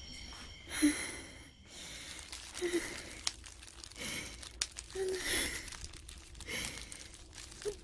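A woman's weak breaths and sighs, about every second and a half, some with a faint catch of voice: a dying woman breathing before her last words.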